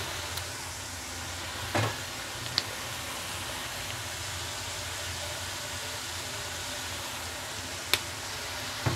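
Oyster mushrooms and green chilies sizzling steadily in a wok over a gas flame, with a few light knocks and clicks, the sharpest near the end.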